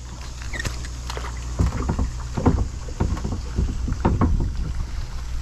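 Kayak being paddled: irregular splashes and knocks of the paddle against the water and the plastic boat, over a low steady rumble.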